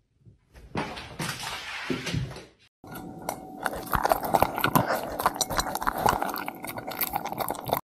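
A dog eating from a bowl: chewing and crunching with quick clicks and clinks against the bowl. It starts about a second in, breaks briefly near the three-second mark, then runs on as a dense patter of clicks.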